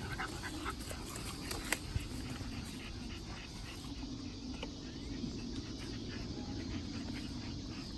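Faint dog sounds over steady outdoor background noise, with two sharp clicks about two seconds in.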